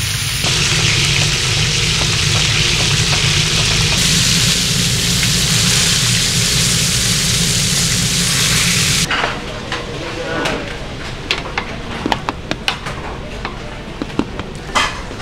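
Fish frying in shallow oil in an iron pan, a steady, dense sizzle. About nine seconds in it stops abruptly and gives way to a run of metal clinks and scrapes from a scoop working cooked rice in a steel pot and strainer.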